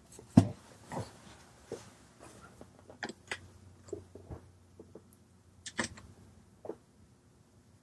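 Scattered small clicks, taps and knocks of vape hardware being handled: an atomizer being unscrewed from an Eleaf iStick TC200W box mod's 510 connection and the mod stood down on the desk. A louder knock comes about half a second in and another near six seconds.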